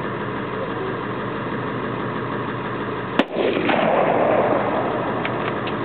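A Tannerite charge of about five pounds packed in a refrigerator detonates: one sharp blast about three seconds in, followed by a loud rumble that fades over about two seconds, with a few faint knocks near the end. A vehicle engine idles steadily underneath.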